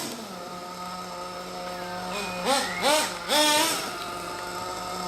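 Ofna Dominator RC truck's RB K10 nitro engine idling steadily, blipped up three times in quick succession about two to three and a half seconds in, then settling back to idle.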